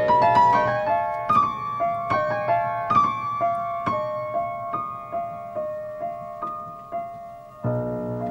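Solo grand piano playing: single notes struck about twice a second over a ringing high note, getting gradually softer, then fuller, denser chords come in suddenly near the end.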